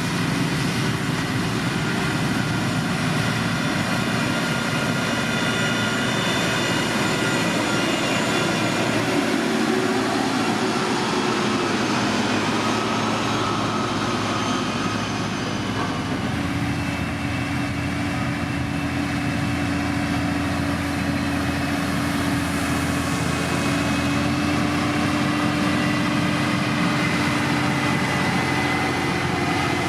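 Diesel engine of heavy road-building machinery, a motor grader or road roller, running steadily under work, its engine note shifting about halfway through.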